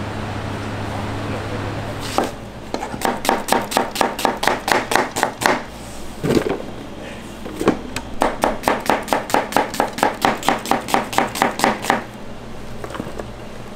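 Knife chopping quickly on a cutting board in two runs of even strokes, about five a second, with a pause and a single heavier knock between them. A steady hum is heard in the first two seconds.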